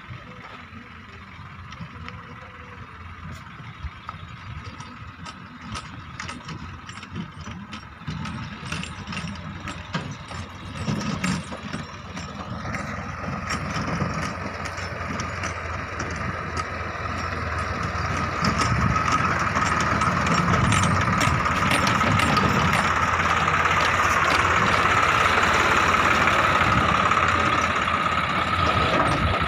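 Backhoe loader's diesel engine running, with a steady high whine that strengthens about halfway through and the whole sound growing louder after that.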